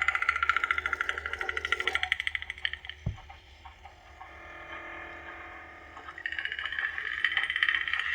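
Lightsaber soundboard playing its sound font through the hilt speaker: a rapidly pulsing, crackling hum. A short knock comes about three seconds in, the hum then drops quieter, and it swells back up about six seconds in.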